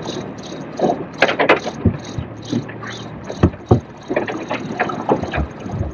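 Knocks and clunks of fishing rods and gear being handled in a small boat, over a fast, regular high ticking and the wash of water against the hull.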